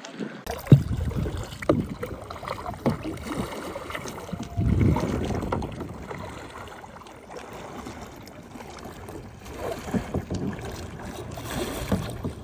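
Kayak paddles dipping and splashing in lake water, in irregular strokes, with water washing against the hull and a longer swell of splashing about five seconds in.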